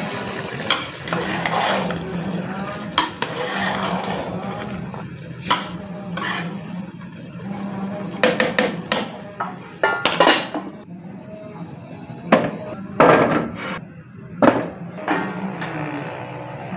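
Metal slotted spoon stirring rice in a large aluminium pot, scraping and knocking irregularly against the pot, with a few louder clanks; the pulao is being mixed before it is covered to steam.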